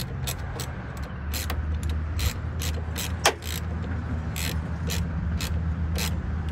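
A socket ratchet clicking in short, irregular strokes, about two a second, as it tightens the nut on a car battery's terminal clamp. A steady low hum runs underneath.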